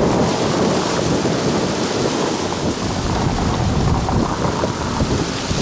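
Road traffic driving through the intersection, with a low, unsteady wind rumble on the microphone.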